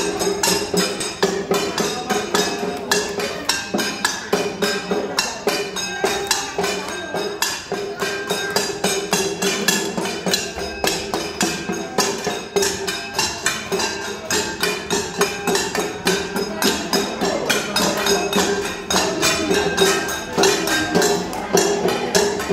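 Folk-style dance music with a steady beat of quick, even, sharp clacks, like a wood block.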